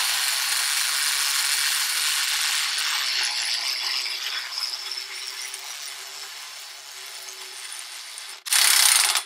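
Impact wrench hammering steadily on a 1-1/4-inch front axle nut, slowly getting quieter, with a louder burst just before it stops. It takes several seconds to break the nut loose: the wrench is not as strong as it used to be, and the nut's threads are damaged.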